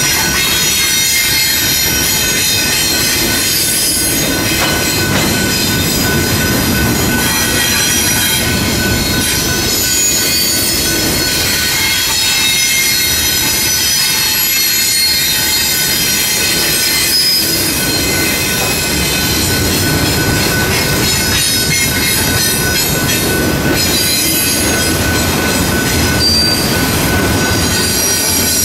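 Double-stack intermodal well cars rolling past at speed: a continuous loud rumble of wheels on rail, with the wheels squealing in several steady high tones above it.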